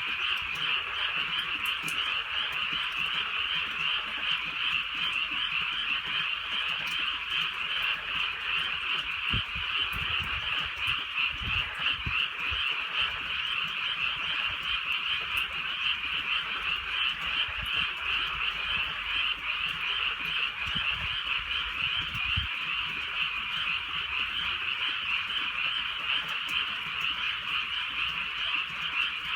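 A dense chorus of many frogs calling over one another without a break, a steady wall of croaking and trilling.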